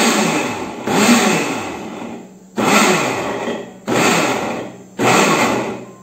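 Mallory Taurus glass-jar blender pulsed again and again, chopping chunks of apple in lemon water. Each burst starts suddenly and then winds down with a falling pitch over about a second, about five pulses in all.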